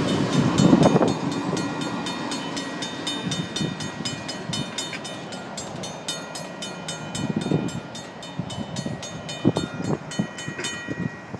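Railroad crossing warning bells, one of them a Safetran mechanical bell, ringing with evenly spaced strikes while the end of a freight train rumbles away during the first couple of seconds. The bells stop near the end as the crossing gates rise.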